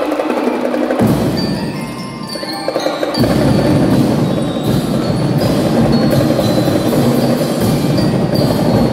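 Drum and lyre corps playing: bell lyres and mallet keyboards ring out the melody over snare and bass drums. The low drums come in about a second in and the full drum section plays from about three seconds in.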